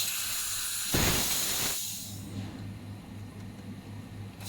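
Handheld fiber laser machine firing at the metal with a high hiss, over a steady low electrical hum. There is a sharp burst about a second in, the hiss fades after about two seconds, and it starts again near the end.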